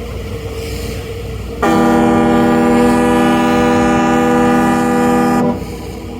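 Ferry's horn sounding one long, steady blast of about four seconds, starting about a second and a half in and cutting off sharply, over a constant low rumble.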